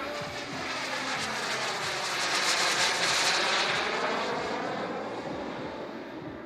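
Turbine engine of a large-scale RC F-16 jet model making a flyby: a broad jet hiss that swells to a peak about three seconds in and then fades as the model passes.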